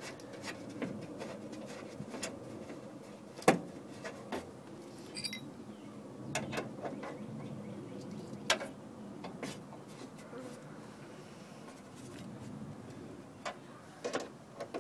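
Scattered clicks and knocks of bolts and a hand tool against the inner metal frame of a minivan door as the window regulator motor is fitted and its bolts are started by hand. The sharpest knock comes about three and a half seconds in, another about eight and a half seconds in.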